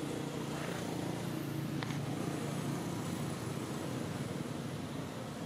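Steady low rumble of a motor vehicle engine running nearby, with a single faint click about two seconds in.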